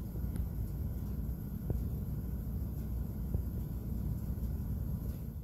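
Steady low rumble of a car heard from inside its cabin, with a couple of faint clicks.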